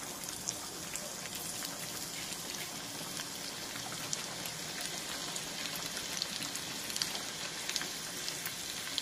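Chopped ginger sizzling in hot ghee in a small tadka pan: a steady frying hiss with many small crackles and pops.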